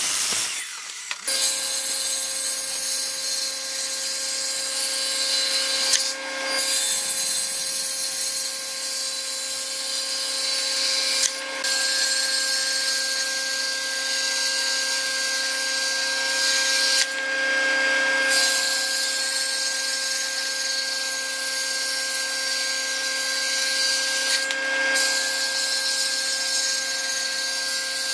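Sliding miter saw finishing a cut through a thick block of wood, then a band saw running with a steady hum and hiss as a wooden block is fed to its blade.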